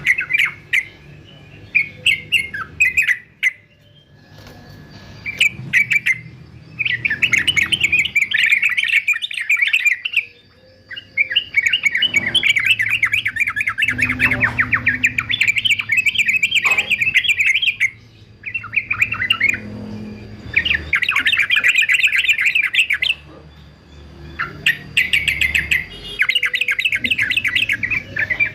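Male yellow-vented bulbul singing in long, rapid chattering phrases of dense notes, several phrases of a few seconds each broken by short pauses.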